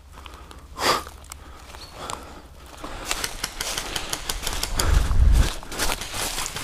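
Dry leaves rustling and crunching, with clicks and knocks of the rifle being handled, busiest in the second half and with low bumps a little after halfway. A single short rustle or knock comes about a second in.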